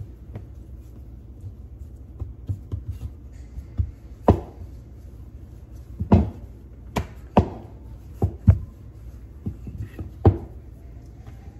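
Flour-tortilla dough being pressed by hand and then rolled out with a rolling pin on a countertop: soft pats at first, then about eight sharp, irregular knocks of the pin against the counter over the last several seconds.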